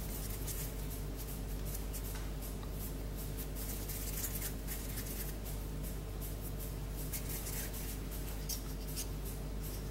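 Faint rubbing and light scattered clicks of hands handling crumbly ghribia dough, over a steady low hum.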